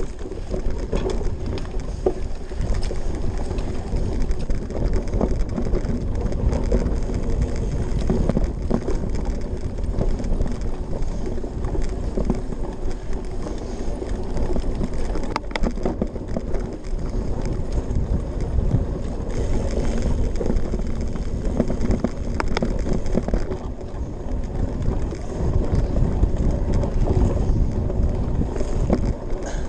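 Cyclocross bike ridden hard over bumpy grass and dirt: a steady rumble of tyres and frame with constant small rattles, picked up through a camera mounted on the handlebars.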